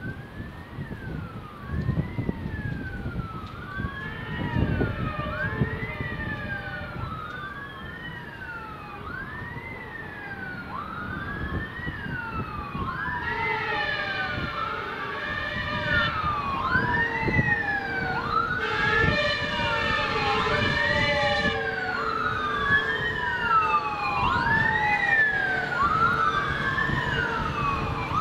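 Wailing sirens of a fire engine and a rescue van responding together: two sirens overlap, each sweeping quickly up and slowly down about every second and a half, growing louder. Two steady horn blasts of about two seconds each sound near the middle, over traffic rumble.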